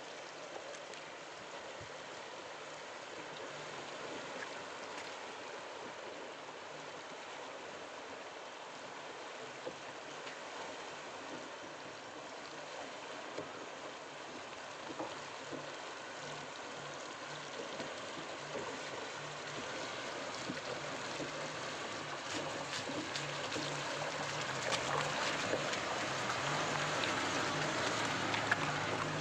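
Shallow rocky river running over stones while a Maruti Suzuki Gypsy's four-cylinder engine works through the water, growing steadily louder as the vehicle draws close. Water sloshes and splashes around its wheels near the end.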